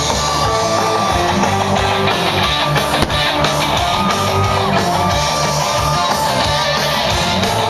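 Music led by guitar, with held notes over a bass line at a steady level.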